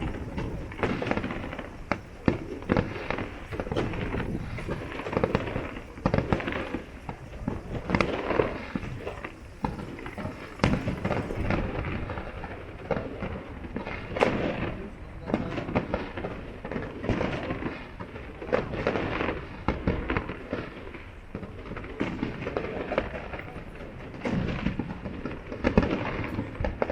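Fireworks display: aerial shells bursting in a steady string of bangs and crackles, with overlapping voices of onlookers.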